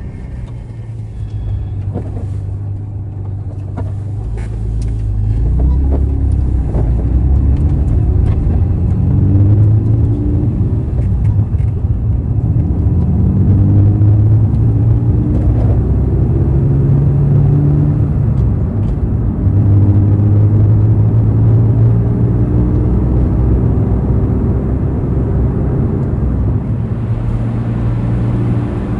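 Honda NSX's 3.0 L V6, breathing through an all-titanium aftermarket exhaust, running under way. Its note rises in pitch several times and drops back, as the car accelerates and shifts gears.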